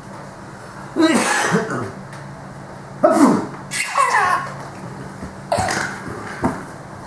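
A man's exaggerated fake sneezes, three loud "achoo" bursts about two seconds apart, with a child's high-pitched laughter in between.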